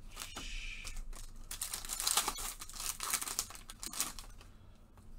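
Foil trading-card pack wrapper crinkling and tearing as gloved hands handle and open it, the crackle loudest midway and thinning out near the end.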